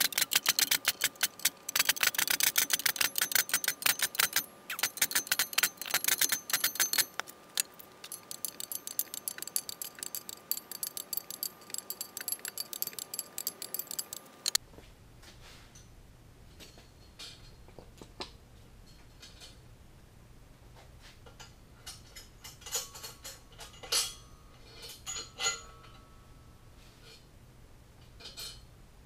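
Socket ratchet wrench clicking rapidly as the bolts on the steel top plate of a hydroforming press are run in. About fifteen seconds in this cuts off suddenly, leaving a low hum with scattered clicks and a few short metallic clinks.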